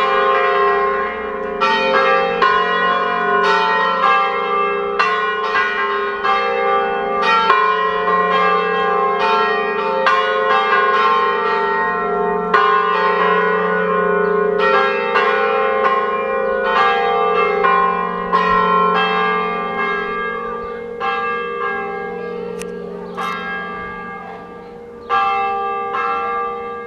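A tower peal of four swinging church bells, tuned to F3, rung all together as a solemn full peal (plenum), with overlapping strikes over a steady hum. From about twenty seconds in the strikes thin out and the ringing fades as the bells come to rest, with one last loud strike near the end.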